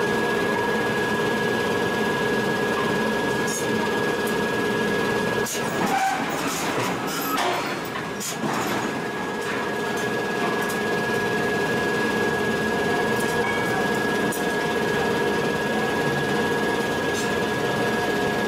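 Steady hum and whine of forge-shop machinery, with a stretch of metal clinking and scraping about six to nine seconds in as long steel tongs are worked at the red-hot forged steel disc.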